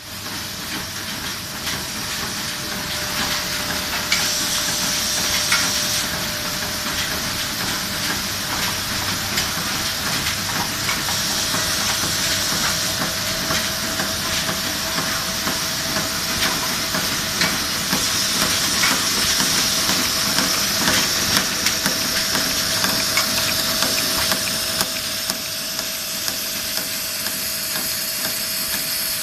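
Automatic tape-and-reel machine for radial electronic components running: a steady hiss with a constant hum tone and many small, irregular clicks from its moving parts.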